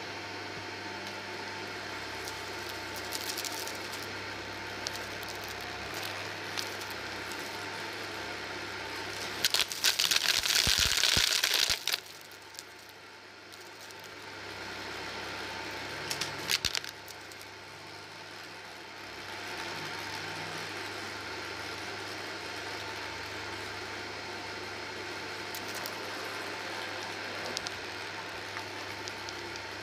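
Shark DuoClean Lift-Away vacuum cleaner running over carpet: a steady motor hum with scattered clicks and crackles of debris being picked up. About ten seconds in, a louder rattling rush lasts around two seconds. After it the sound drops quieter for several seconds, then returns to its earlier level.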